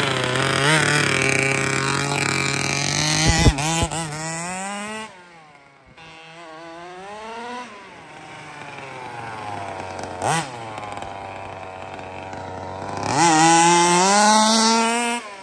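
HPI Baja 5B 1/5-scale RC buggy's new 7.5 hp two-stroke gas engine, loud and revving hard as the car is driven, its pitch climbing and falling with the throttle. It fades as the car runs off about five seconds in and gives a short rev around ten seconds. It comes back loud with a climbing rev near the end, then cuts off suddenly. There is a sharp knock about three and a half seconds in.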